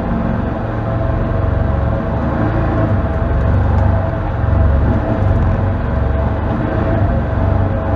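Can-Am Defender HD10 side-by-side's Rotax V-twin engine running at low trail speed, heard from inside the cab: a steady low rumble with a constant whine above it, the level swelling and easing a little with the throttle.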